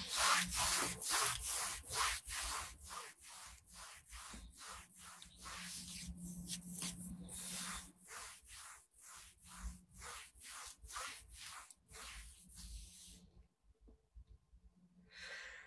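Repeated rubbing strokes right against the phone's microphone, about three a second, growing fainter and stopping about 13 seconds in, with one short rustle near the end.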